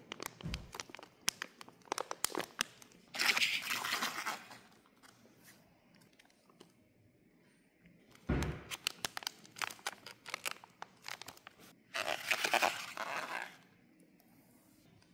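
Plastic pouches of air dry clay crinkling and rustling as they are handled, with light knocks as they are picked up and set down. There are two spells of handling, the second starting about halfway through, with quiet between and after.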